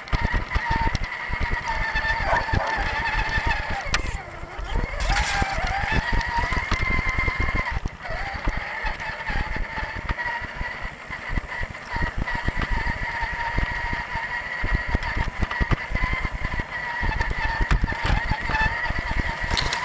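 Electric motor and gear drive of a 1/10-scale Axial Deadbolt RC crawler whining steadily under the onboard camera. The pitch sags briefly a few times as the load changes, over a constant rough clatter of the tyres and chassis on wood chips.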